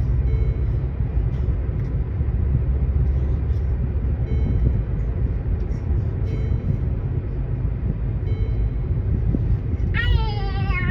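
Steady low road rumble inside a moving car's cabin. About ten seconds in, a baby starts making a high, pitch-gliding vocal sound.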